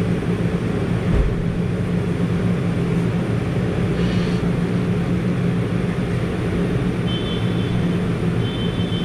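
Steady low machinery hum, with a single low thump about a second in.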